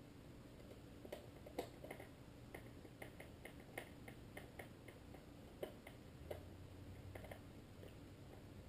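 Faint, irregular light clicks and ticks of small screws and plastic instrument-cluster parts being handled and fitted, several a second through the middle of the stretch.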